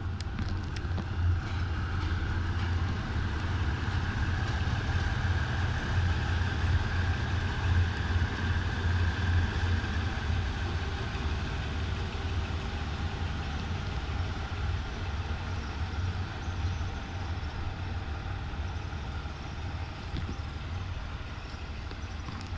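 Diesel train engine running with a steady low drone, a little louder in the first half.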